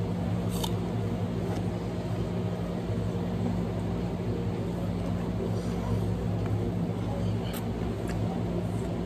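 Steady low mechanical hum of a running machine, with a few faint clicks.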